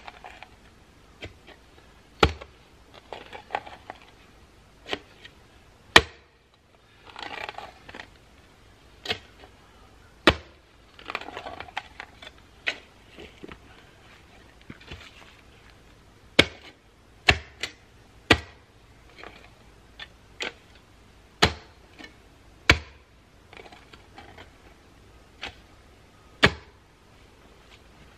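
Digging with a hand post-hole auger in dirt: sharp metal clinks and knocks every second or two, with a few stretches of scraping soil.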